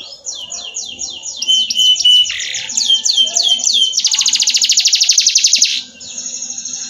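Domestic canary singing: quick repeated downward-sweeping notes, a short held whistle, then a fast rapid trill from about four seconds in that lasts nearly two seconds.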